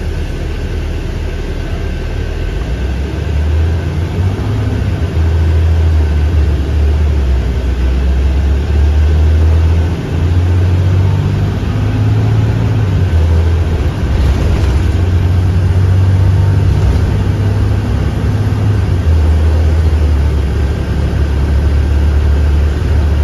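2017 IC CE school bus engine running under way, heard inside the passenger cabin as a steady low drone over road noise. The drone grows louder a few seconds in and dips briefly twice, as at gear changes.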